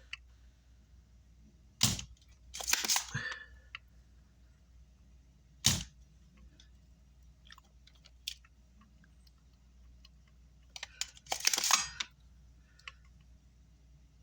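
Circuit-board cleaning on a workbench: two short scrubbing bursts of about a second each, and two sharp clicks of tools or the board being handled.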